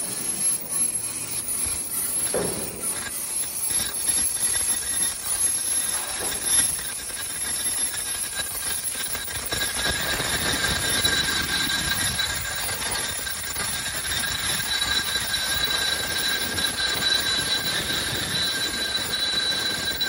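Automatic non-woven dust bag making machine running: a continuous mechanical clatter and hiss, with steady high-pitched whines that grow stronger about halfway through.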